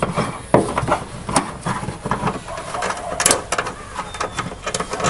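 Irregular clicks, knocks and scraping of a screw and Phillips screwdriver being worked against plastic tailgate trim.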